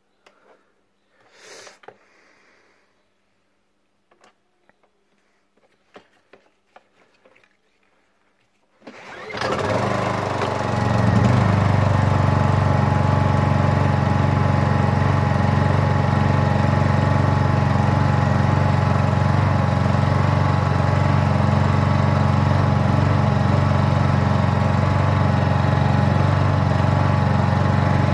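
Honda EU2200i inverter generator: a few faint clicks as its controls are set, then about nine seconds in its single-cylinder four-stroke engine starts, picks up within a second or two and runs steadily.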